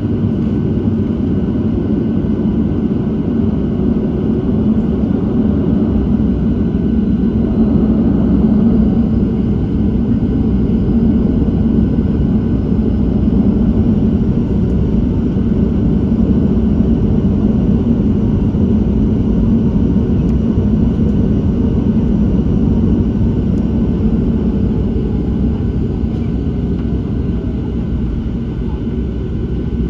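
Boeing 737-700 cabin noise while taxiing, heard from a seat over the wing: a steady low rumble from its CFM56-7B engines. A faint high whine rises slightly and holds, then fades near the end.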